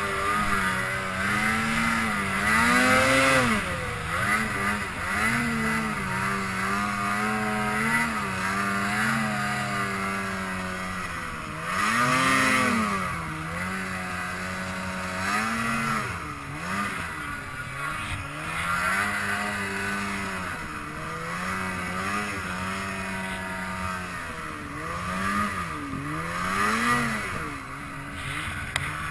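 Snowmobile engine pulling through deep powder. Its pitch rises and falls again and again as the throttle is worked, with several strong swells a few seconds apart.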